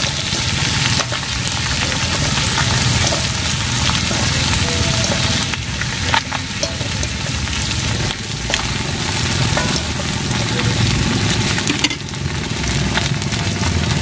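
Vegetables sizzling steadily as they stir-fry in a black iron wok, with a metal spatula scraping and clicking against the pan every so often as they are stirred.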